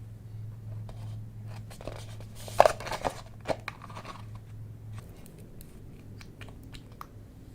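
Small objects and crinkly packaging being handled: scattered clicks and crackles, with a loud crinkling burst a little past two and a half seconds in.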